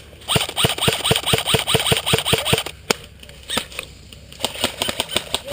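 Airsoft gun firing a rapid full-auto burst of sharp, evenly spaced shots for about two seconds, followed by a few single shots.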